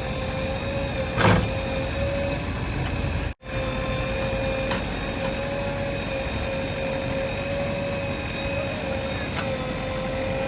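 JCB 3DX backhoe loader's diesel engine running steadily under a steady high whine, with one sharp knock about a second in. The sound cuts out for an instant a few seconds in.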